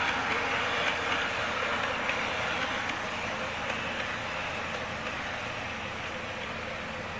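KATO HO-gauge KiHa 58/KiHa 65 diesel railcar model running on the layout track: a steady whirr of the motor car's drive and the wheels on the rails, slowly fading as it moves away. It runs smoothly, its motor car stripped and cleaned and its pickup plates polished.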